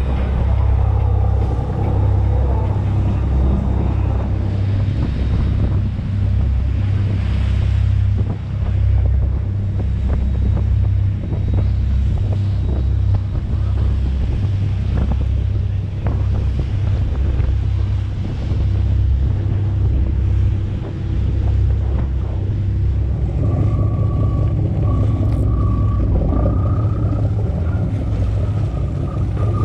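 Wind buffeting the microphone over the low rumble of a sportfishing boat at sea. A thin steady whine comes in about three-quarters of the way through and holds to the end.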